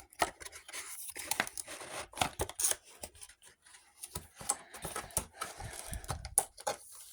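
Cardboard box and packaging being handled and pulled open: irregular rustling, scraping and small knocks and clicks.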